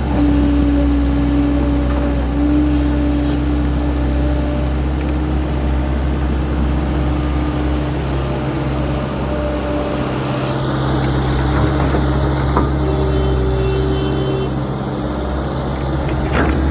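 Engine-driven water-well drilling machine running steadily, a low engine drone with a held whining tone that steps up in pitch for a moment about two-thirds of the way through.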